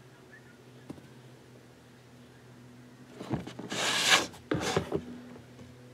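Handling noise: scraping and rubbing for about two seconds, a little past the middle, as the round wooden clock blank is moved by hand on its plastic tray, over a steady low hum.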